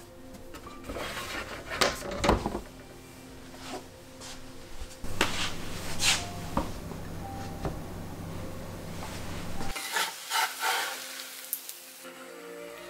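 Plastic chopping board scraping and knocking as it is slid out of a narrow storage slot, then clacking as it is laid down and handled on a wooden board, a few separate knocks and rubs.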